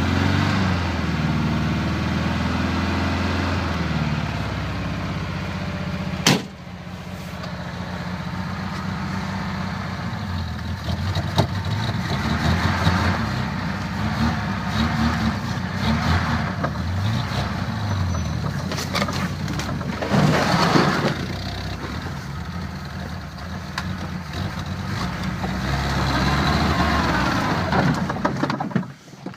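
Vehicle engine running unevenly on a cold start at about −20 °C, its note wavering up and down. A sharp click comes about six seconds in, after which it runs quieter.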